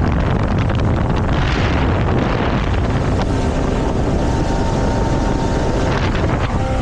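Motorboat running under way, with heavy wind noise on the microphone covering the engine and water, and a few brief thumps.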